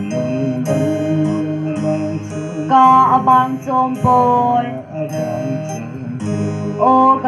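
Acoustic guitar strummed in a steady rhythm of chords, with a male voice singing over it in stretches, about three seconds in and again near the end.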